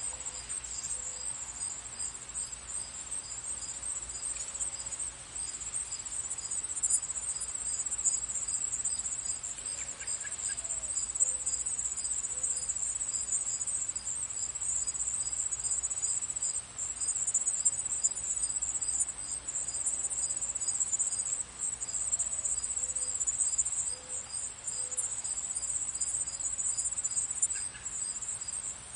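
Crickets chirping: a steady, high continuous trill with a softer chirp repeating about twice a second beneath it, and a few faint bird calls now and then.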